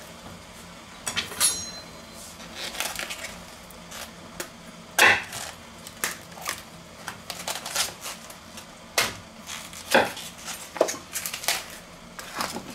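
Large kitchen knife cutting and breaking the leaves and stalks off a head of cauliflower on a wooden cutting board: irregular crisp cracks of snapping stalks and knocks of the blade on the board.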